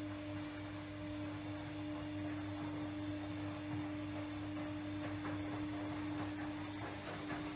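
A steady hum: a low drone with one constant mid-pitched tone held over it.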